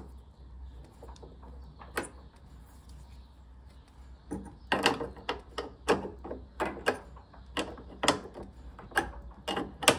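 A metal wrench turning and tightening the securing nut on a washing machine's heating element, with sharp metallic clicks: one about two seconds in, then a run of about three a second from a little past four seconds on.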